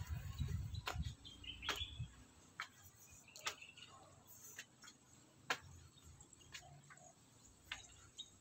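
Faint, sharp clicks or taps at about one a second, over a low rumble during the first two seconds. There are a couple of faint high bird chirps early on.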